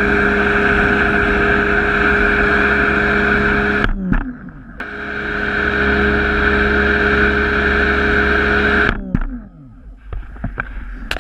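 Greenworks electric pressure washer running while spraying soap through the high-pressure foam applicator: a steady motor-and-pump hum under a loud hiss of spray. About four seconds in the motor winds down and stops as the trigger is let go. It starts up again about a second later and winds down once more about two seconds before the end, followed by a few clicks.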